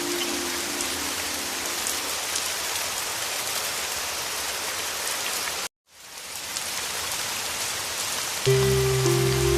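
Steady heavy rain, with soft low music notes underneath that fade away in the first couple of seconds. Near the middle the sound cuts out completely for a moment and the rain fades back in, and about a second before the end low music notes come in, louder than the rain.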